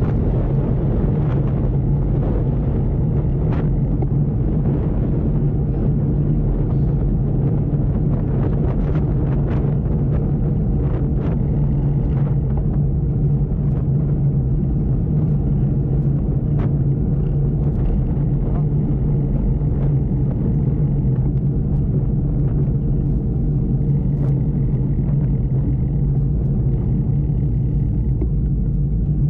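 Steady low rumble of wind and road vibration from a road bike being ridden on tarmac, picked up by a camera mounted on the bike, with a few faint clicks.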